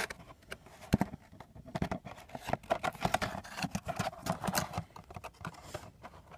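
Handling of a cardboard trading-card box and its plastic wrap as a graded card slab is pulled out: irregular crinkles, taps and clicks, with one sharper knock about a second in.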